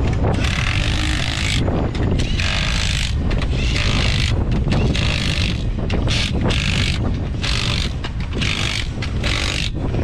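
Cordless impact wrench running the lug nuts on a UTV wheel, in about ten short bursts, each a second or less, with brief gaps between them.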